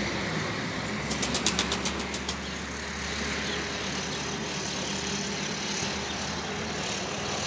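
A steady motor hum, with a quick series of about ten sharp clicks between one and two seconds in.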